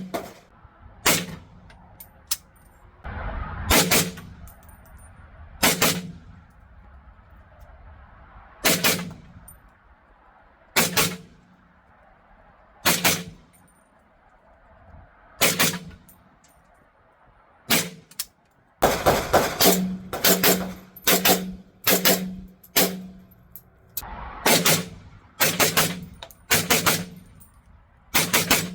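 Suppressed 7.62x39 rifle fire through a titanium Banish 46 suppressor, using factory ammunition. Single shots come about two seconds apart, then from about two-thirds in there are two quick strings of rapid shots.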